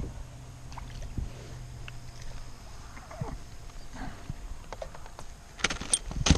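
A small bass being landed into a plastic kayak: scattered light knocks and clicks, then a burst of sharp clicks and knocks near the end as the fish, rod and hands knock against the hull.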